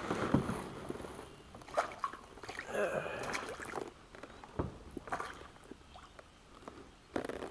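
A hooked crappie splashing briefly at the surface beside a kayak, then scattered short knocks and rustles of handling against the kayak's plastic hull.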